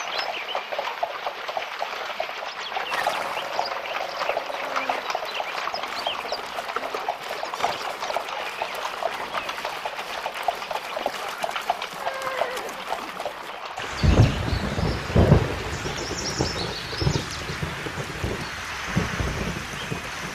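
Hooves of packhorses and men's boots splashing and clattering through a shallow, stony stream. About fourteen seconds in, the sound changes abruptly to thunder rumbling over steady rain.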